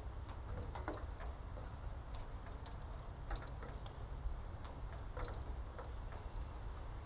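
Scattered light clicks and ticks at uneven intervals over a steady low rumble.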